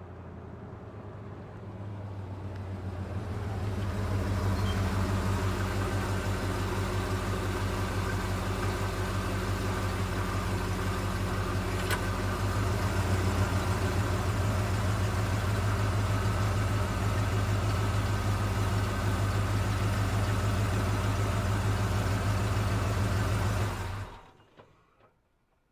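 Truck engine idling steadily, swelling louder over the first few seconds, with a single sharp click about halfway through. Near the end it is shut off and runs down to silence within a second or so.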